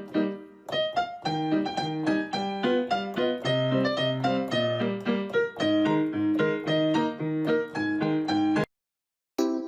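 Background piano music: a bouncy tune of short repeated notes over a low bass line. It cuts off suddenly near the end, and after a brief gap another tune begins.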